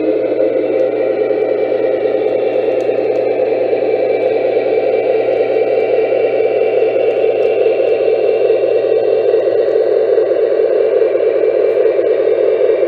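Lionel O-gauge Union Pacific #73 Veranda gas-turbine locomotive running, its onboard sound system giving a steady turbine rush with a faint high whine, together with wheels rolling on the three-rail track. It slowly gets louder as the train nears.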